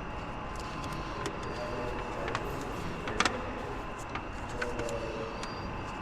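Scattered light clicks and taps of hands handling plastic parts, the loudest about three seconds in, as the radiator fan shroud's fastenings are felt for. A steady background hum runs throughout.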